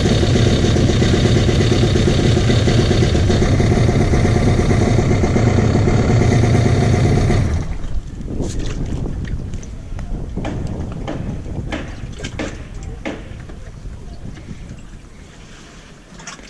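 Jet ski engine idling steadily, then shut off abruptly about seven and a half seconds in. Scattered clicks and knocks follow as the level fades.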